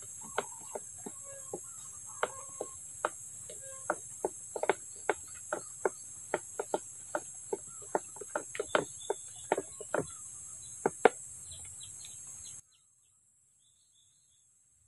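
A stick knocking and sloshing inside a plastic knapsack sprayer tank as the herbicide and water mix is stirred: irregular sharp knocks, one or two a second, over the steady high buzz of crickets. All sound cuts off suddenly about twelve and a half seconds in.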